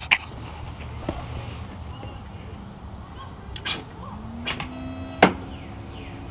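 Hands working the wiring of a radio-control-converted kids' ride-on truck: a few clicks and knocks, then a sharp snap about five seconds in as a connector is pushed home. A low tone rises a little just before the snap and then holds steady.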